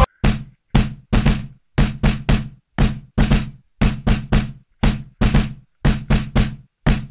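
Drums alone in the soundtrack music: a repeating pattern of heavy drum hits, two to three a second, each cut off into silence.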